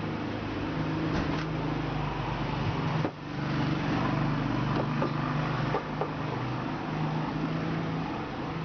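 A steady low mechanical hum, with a few light clicks over it.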